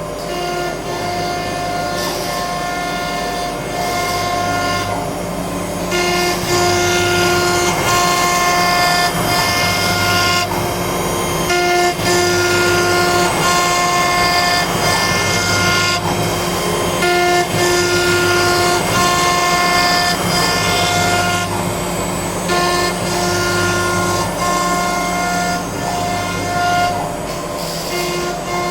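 CNC router running with its dust collector: a steady machine whine with overtones over a high hissing noise, broken by short dips about every five seconds as the machine works in repeated passes.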